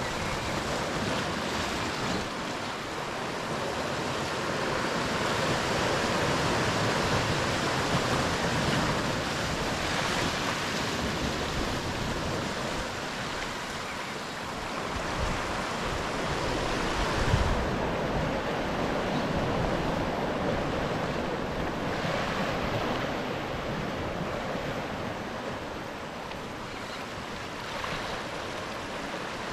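Sea swell surging and breaking against a rocky shoreline, the wash swelling and easing, with wind rumbling on the microphone. One louder low thump a little past halfway.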